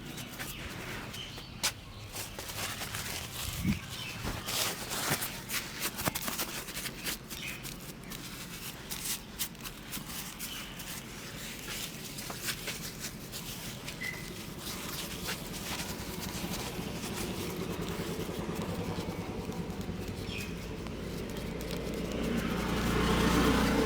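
Hands massaging a head: a run of sharp slaps and taps in the first half, then steadier rustling, with birds chirping faintly in the background. A low rumble swells near the end.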